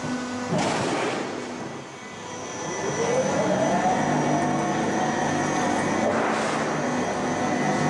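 Factory machine's motor spinning up with a rising whine that levels off and holds steady. Two short hissing bursts come, one near the start and one about six seconds in.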